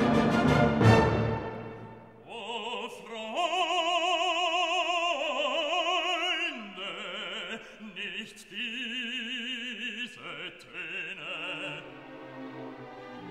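Background music: an orchestral passage fading out about a second and a half in, then an operatic singer holding long notes with a wide vibrato.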